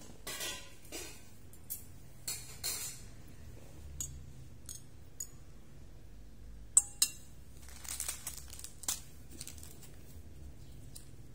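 A metal fork clinking against a ceramic plate, with one sharp ringing clink about seven seconds in, among scattered light taps and rustling.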